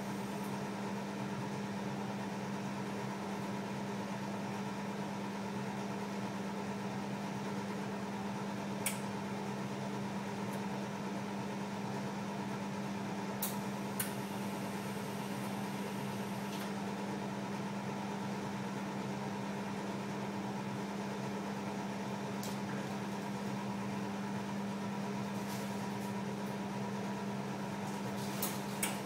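Steady hum of running equipment: a low tone and a fainter higher whine over a bed of fan-like noise, with a few faint clicks scattered through it.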